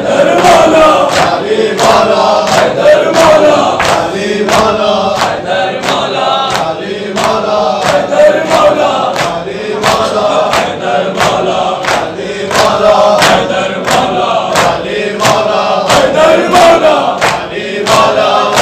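Group of men chanting in unison with rhythmic matam: open palms slapping chests in a steady beat, about three strikes every two seconds, over the chanting voices.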